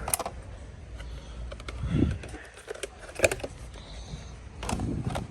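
Scattered sharp clicks and light rattling, with a couple of dull thumps, as packaged toys are handled on a store shelf.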